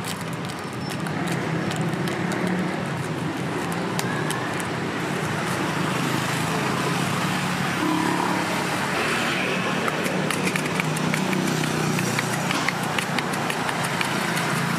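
Busy street ambience: steady traffic noise with a low hum underneath, and scattered sharp ticks and clicks that come more often in the second half.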